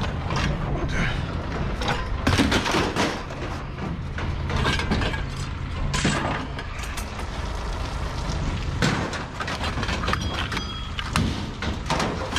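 Scrap metal clanking and banging at irregular intervals over the steady low hum of an idling engine.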